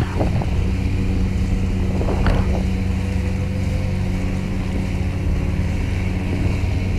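Fishing boat's diesel engine running steadily under tow load, a low even drone, with a couple of brief sharp sounds over it near the start and about two seconds in.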